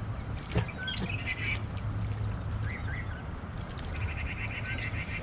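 Birds calling: a few short chirps, then a rapid chattering trill of even notes starting about four seconds in. A single knock sounds about half a second in, over a steady low rumble.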